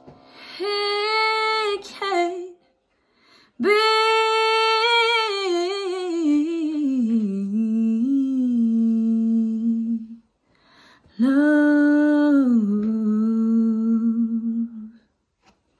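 A woman's voice singing unaccompanied: three wordless, hummed phrases. The long middle phrase winds down in pitch through small ornaments and settles on a held low note.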